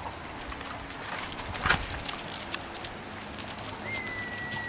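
Shiba Inu dogs' claws clicking and scuffing on concrete as they walk about, in scattered light ticks with one louder scrape about a second and a half in. Near the end a single long steady whistled note starts and carries on.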